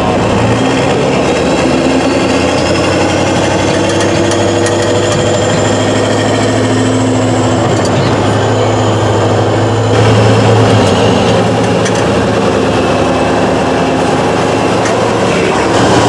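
Tatra 813 8x8 trial truck's diesel engine working hard as the truck climbs a steep sandy slope, its revs rising and falling; it gets louder about ten seconds in.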